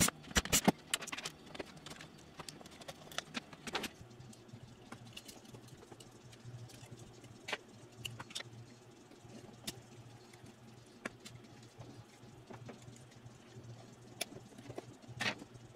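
Scattered small clicks and taps of plastic parts and screws as a cassette deck's tape transport is unscrewed and lifted out by hand, with a cluster of sharper clicks in the first second.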